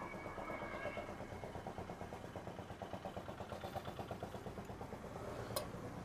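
An engine idling faintly with a steady, rapid, even pulse, plus a single sharp click near the end.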